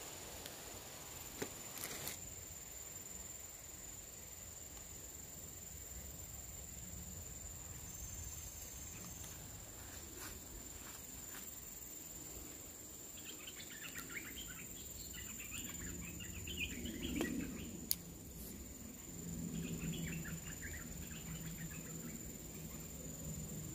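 Insects making a steady high-pitched drone, with scattered bird chirps in the middle and later on, and a few faint clicks.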